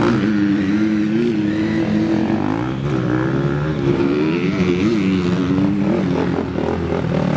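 Several motocross bikes' engines idling together, with the pitch wavering up and down as riders blip the throttles.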